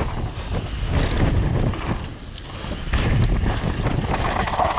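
Wind buffeting the microphone with the rattling and knocking of a downhill mountain bike over rough trail. It eases off briefly a little after two seconds in, then picks up again.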